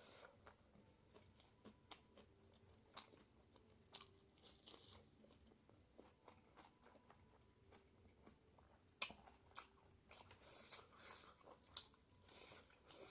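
Close-miked chewing and biting of pork with bamboo shoots. Scattered wet mouth clicks and smacks, with a sharp click about nine seconds in and denser bursts of chewing in the last few seconds.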